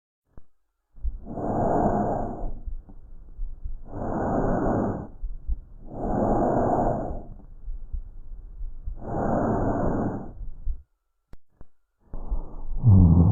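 Recorded lung sounds as heard through a stethoscope: four breaths of noisy airflow, each about a second long. Near the end a different, louder recording begins, with stronger low sound.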